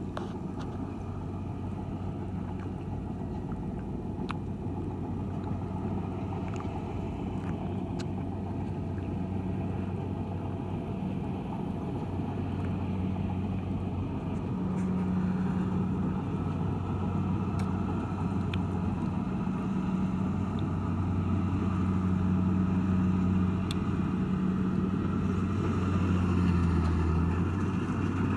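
Kubota DC-70 Plus rice combine harvester's diesel engine running at a steady speed, growing slightly louder toward the end.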